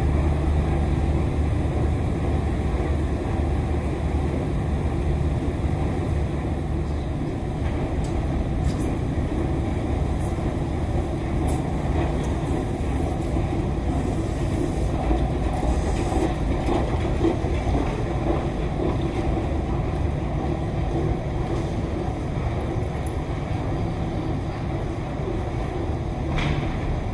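Steady low mechanical rumble, with a few faint ticks above it.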